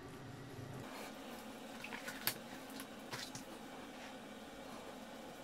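Faint handling of a raw pork belly by hand, with soft squelching as the fatty layers are pulled open and a few light clicks.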